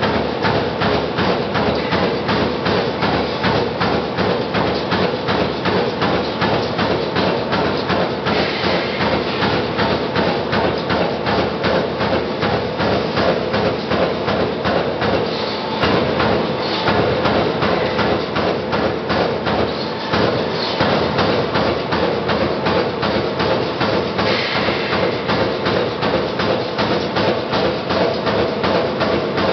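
CNC turret punch press punching sheet metal: a rapid, even run of punch strokes, several a second, with brief breaks near the middle.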